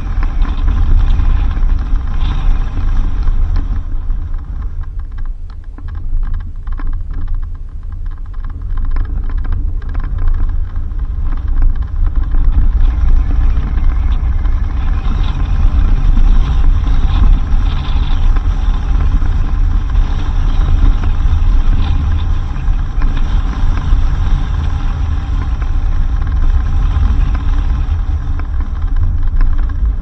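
Suzuki Jimny driving on a dirt road: a steady low rumble of engine and tyres that eases off for several seconds about five seconds in, then comes back.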